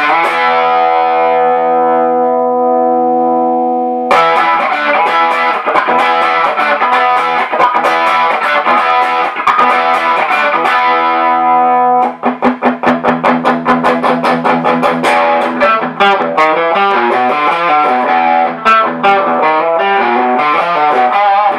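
Electric guitar, a Gibson Tribute 60s on its bridge pickup, played through a small 12 V single-ended 12AX7/12AU7 tube amplifier into a 12-inch Celestion Greenback speaker. A chord rings out for about four seconds, then chords are played in rhythm, and from about twelve seconds in fast picked notes and riffs follow.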